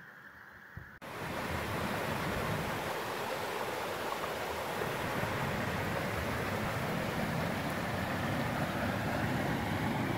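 Rushing water of a small mountain-stream cascade pouring into a pool, heard close up as a loud, steady rush. A quieter, duller water sound for the first second gives way suddenly to it.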